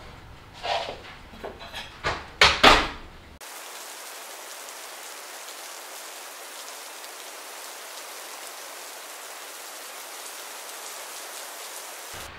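A few sharp knocks and clatters of a dish being handled at an open oven, the loudest two close together near the three-second mark. Then, after a sudden change, steady rain falling: a continuous even hiss.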